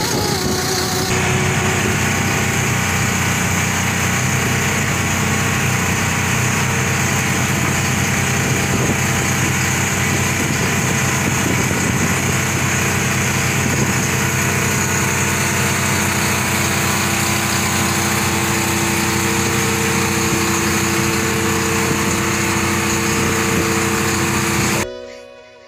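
Engine of a parasail tow boat running steadily at speed, with wind and water rushing over the microphone. Music fades in under it near the end, and the engine and wind noise cut off suddenly just before the end, leaving the music.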